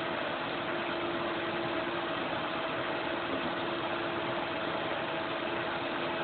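Old vacuum cleaner's motor running steadily, drawing air for a dry-ice cyclone: an even rush of air with a constant hum.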